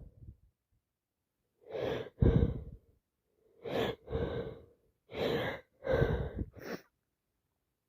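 A woman with a heavy cold gasping and sighing in the build-up to a sneeze: about seven short voiced 'ah' breaths, mostly in pairs, with pauses between them, and the sneeze does not yet come.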